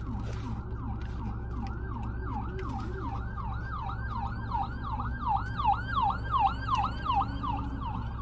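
Emergency vehicle siren on a fast yelp cycle, about four falling pitch sweeps a second, growing louder past the middle, over a steady low hum.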